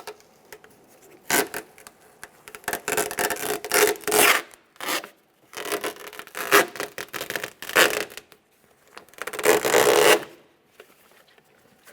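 Vapor barrier sheet being pulled and peeled off a pickup's inner door, a scraping rustle in several bursts with short pauses between them.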